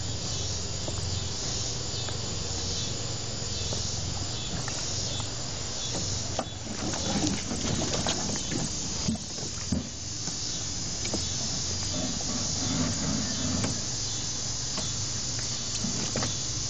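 A steady high hiss throughout, with a run of knocks and clunks about halfway through as someone steps into and shifts about in an aluminum jon boat.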